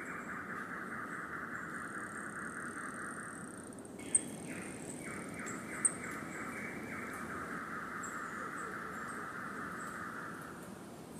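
Rainforest ambience: an animal's rapid, buzzing trill held for several seconds, breaking off about a third of the way in and starting again in a few short pulses before running on. A thin high whistle sounds for a couple of seconds before the break, and two sharp high chirps come a couple of seconds apart, over a soft steady hiss.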